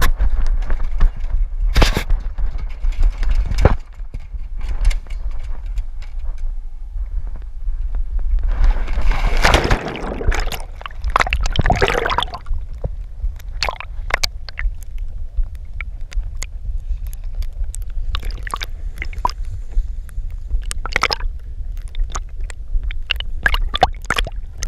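Pool water splashing and sloshing as a dog goes in and swims, heard from a camera strapped to its back, over a steady low rumble on the microphone. The heaviest splashing comes about nine to twelve seconds in, followed by lapping water and scattered small clicks and knocks.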